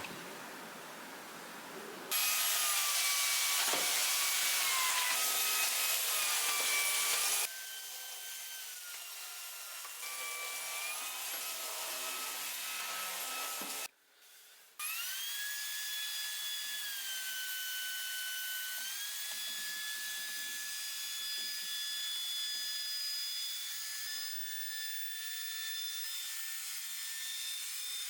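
Shark cordless stick vacuum running with a high motor whine over a hiss, its pitch stepping up and down several times. About halfway through it cuts out for a second, then spins back up.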